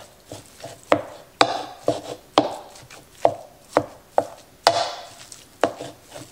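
A flat wooden utensil jabbing and chopping through raw ground beef in a plastic bowl: about ten sharp, irregular knocks, roughly two a second, each with a soft squelch of meat.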